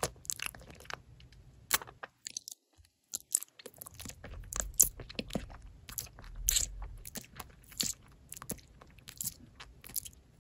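Close-miked biting and chewing of a firm blue gummy jelly: a string of short sharp crunches and clicks at irregular intervals.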